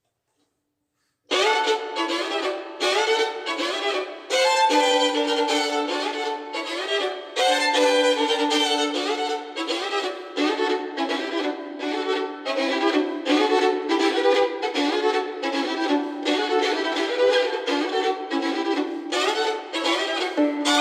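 A violin starts playing about a second in, a melody over a steady lower note that keeps returning.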